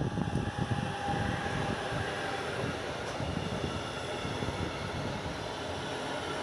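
An electric locomotive goes by at the start, then the wagons of its container freight train roll past close by. The wheels on the rails make a steady rumble, with a faint whine about a second in.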